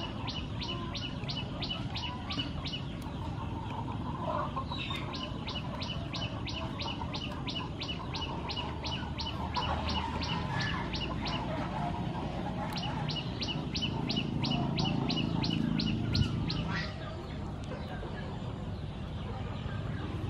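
A bird calling in long runs of quick, sharp, repeated high notes, about five a second. There are three runs of several seconds each, with short pauses between them.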